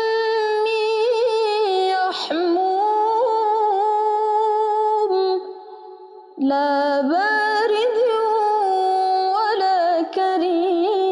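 A woman's voice chanting Quran recitation (murottal) in the bayati maqam, drawing out long melismatic notes with small ornamental turns. The phrase breaks off for about a second just past the middle, then resumes on a new held line.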